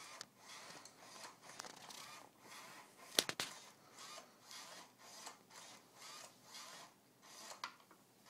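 Remote-controlled robotic toy dinosaur's motors whirring in short repeated bursts, about two a second, as it moves its head and body. A sharp click about three seconds in is the loudest sound.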